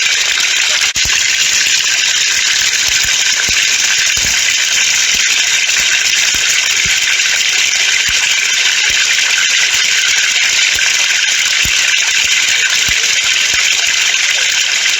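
Water falling from a pipe in a steady stream, making a continuous hissing splash with small low splats scattered through it.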